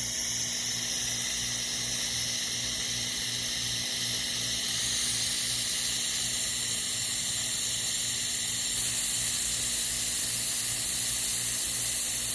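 Handheld fiber laser welder welding aluminium: a steady hiss over a faint low hum, getting a little louder about five seconds in.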